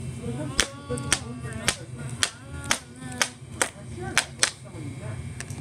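Plastic action figures knocking against each other and the wooden floor in a play fight, a run of sharp clicks and knocks about two a second, with faint vocal sounds between them.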